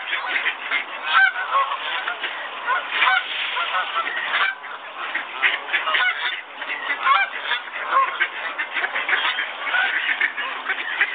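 A flock of waterfowl calling continuously, many short overlapping calls with no break.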